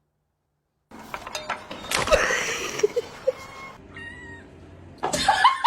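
Domestic cat meowing, with a few short high calls in the middle and a louder rising meow near the end.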